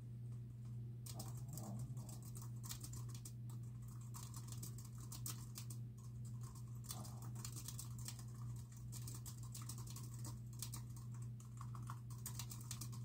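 Fast, irregular typing on a computer keyboard, starting about a second in, over a steady low hum.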